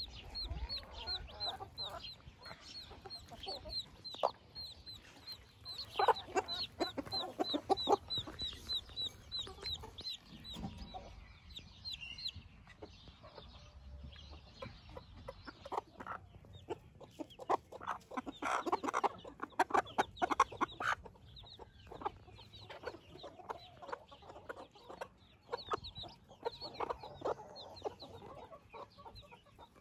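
Silkie chicks peeping rapidly with high, falling peeps for the first twelve seconds or so, while a Silkie hen clucks to them in short runs several times.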